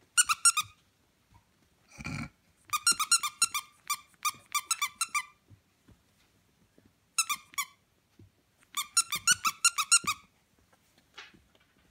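Squeaker in a dog toy squeaking in fast runs of evenly spaced, same-pitched squeaks as puppies chew and bite it, four runs in all, the longest about two and a half seconds. A short low sound comes about two seconds in.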